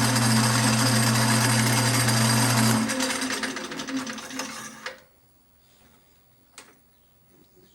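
Wood lathe running with a steady electric-motor hum, switched off about three seconds in and spinning down over the next two seconds. A sharp click follows in the quiet.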